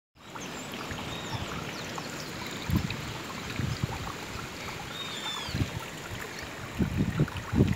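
Steady rush of water outdoors, with low thumps of wind or handling on the microphone, most often near the end, and a few faint high chirps.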